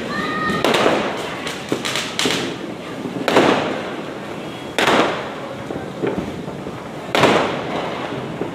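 Diwali firecrackers going off in a string of loud bangs, each dying away in a reverberating tail, with the biggest bursts every one and a half to two and a half seconds and smaller cracks between.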